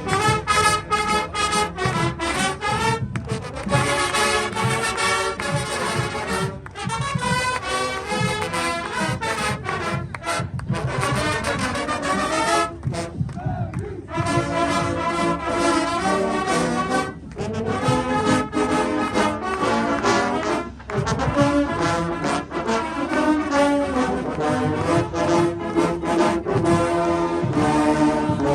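Brass band playing, brass over a steady drum beat, with short breaks between phrases.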